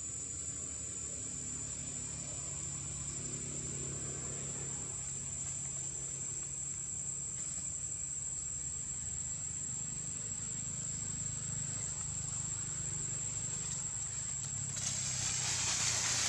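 Steady high-pitched insect drone over a low engine hum. Near the end there is a louder rustle of dry leaves.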